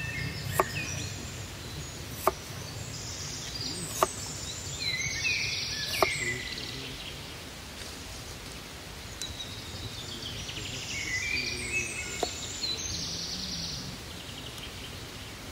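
Forest birds singing in repeated phrases, with four sharp knocks about two seconds apart in the first six seconds and one more later.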